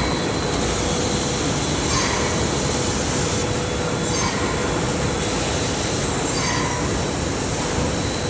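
Bag-on-roll plastic bag making machines running steadily, a dense mechanical din with a faint hum and a faint repeating accent about every two seconds.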